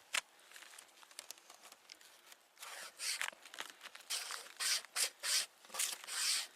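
Pocket string saw rasping through wood in quick back-and-forth strokes, starting about two and a half seconds in, after a single sharp click near the start.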